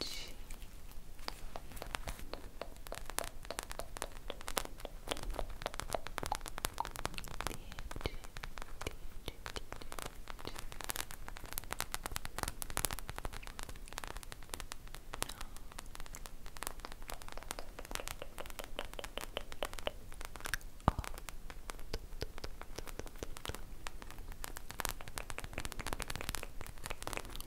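Foam ice-cream-popsicle squishy toy squeezed and handled against the microphone, giving a steady stream of fine crackles and crinkles, with one sharper click about three quarters of the way through.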